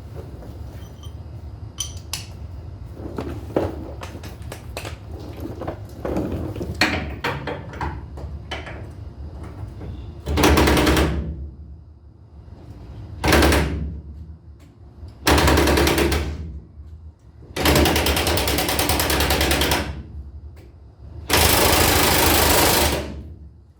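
Impact wrench hammering on a mud-caked trailer-hitch bolt in five bursts, the last two each about two seconds long. Before them come scattered clinks and scrapes of tools on metal.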